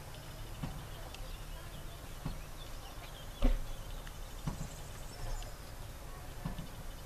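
Handheld camera being moved around inside a parked truck cab: small handling clicks and rustles over a steady low rumble, with one louder knock about three and a half seconds in.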